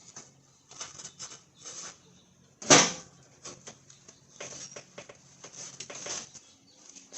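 Clicks, scrapes and knocks of a riding mower's battery and its hold-down being handled and slid under the seat, with one sudden loud knock just under three seconds in.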